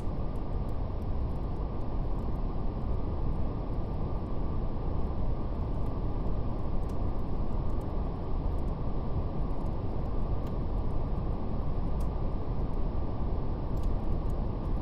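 Steady brown noise, a deep even rush with the highs cut away, with faint scattered crackles of a fire.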